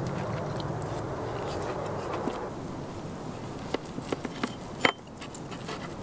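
Knife slicing through a seared steak on a wooden plate: a few light clicks and a sharper knock just before five seconds in as the blade meets the wood. A steady low rushing sound fills the first half and fades out about halfway through.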